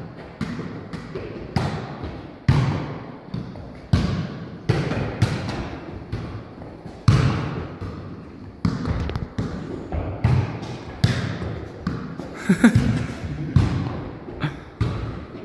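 A football kicked and juggled back and forth between two players, with sharp irregular thuds of foot on ball, about one or two a second.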